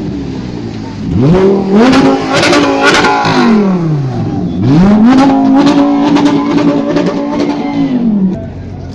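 Audi R8 engine revved twice while standing. Each time the revs climb quickly and hold high for a few seconds. The first falls back gradually and the second cuts off sharply near the end.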